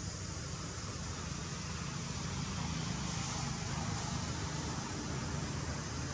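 Steady background noise: a low rumble under a high, even hiss, with no distinct calls or knocks.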